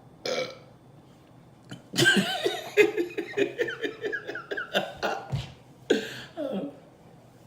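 A woman burping after chugging Coca-Cola's carbonation. A short burp comes first, then a long, stuttering burp of many pulses, then another burp near the end.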